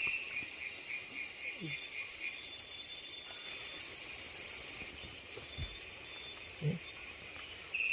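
Rainforest insect chorus: a steady high buzzing that cuts off abruptly about five seconds in, with a fainter rapid pulsing call beneath it in the first two seconds.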